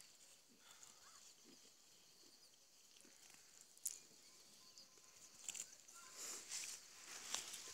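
Near silence: faint rustling and scattered small clicks, with one sharper click about four seconds in and a little more rustling near the end.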